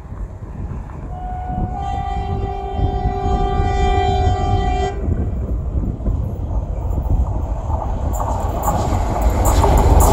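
Twin ALCO diesel locomotives approaching, their engines' low rumble growing steadily louder. A horn sounds one blast of about three seconds, starting near two seconds in, and near the end wheel clatter over the rails builds as the train draws close.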